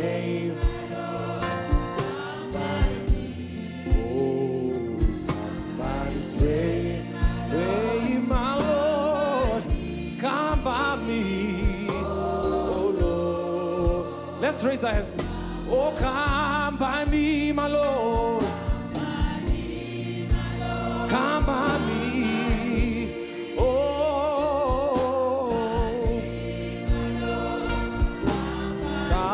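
A man singing a slow gospel hymn into a microphone, his voice wavering in pitch, over steady held low notes, with frequent sharp knocks throughout.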